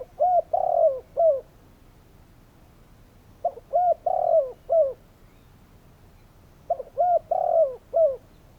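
Spotted dove cooing: three phrases of four low coos each, about three seconds apart, the third coo of each phrase the longest and loudest.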